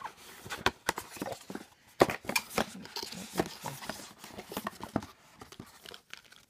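Cardboard packaging being handled: a string of irregular taps, scrapes and rustles as a small card sample packet is slid out of its box.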